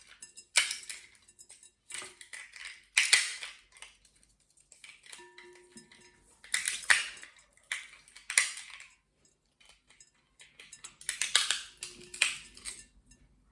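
Walnuts being cracked open by hand: a series of sharp shell cracks and crunches with the clatter of shell pieces, several seconds apart.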